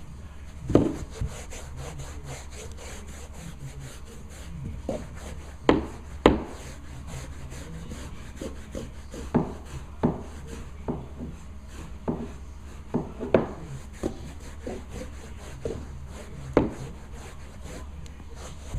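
Stiff-bristled hand scrub brush scrubbing a carpeted stair tread in quick back-and-forth strokes, a dry scratchy rubbing. Irregular sharp knocks come every second or two, the loudest a little under a second in and twice around six seconds in.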